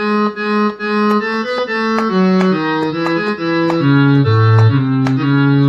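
Sampled harmonium (reed-organ) sound from a software instrument, played live on a 25-key MIDI keyboard: a slow melody of held notes, each changing step by step, with lower notes joining in during the second half.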